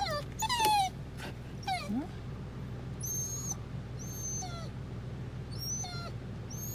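Kai Ken dog sneezing with a short, loud noisy burst about half a second in, with whimpering cries that fall in pitch around it. Short high chirps repeat about once a second through the rest.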